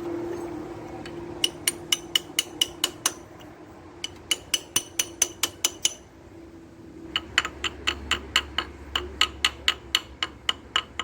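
Ratchet wrench clicking in three quick runs of even, metallic clicks, about five or six a second, with short pauses between the runs, as it works on the Scania 111 engine's timing gear housing.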